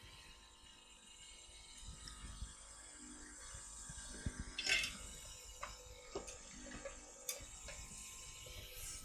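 Faint small clicks and scrapes of hand tools working on a laptop mainboard, over a steady faint high whine, with a louder scratchy scrape a little under five seconds in.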